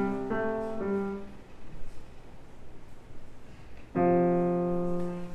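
Acoustic piano: a phrase of struck chords that dies away about a second in, a pause of nearly three seconds, then one loud chord struck about four seconds in and held.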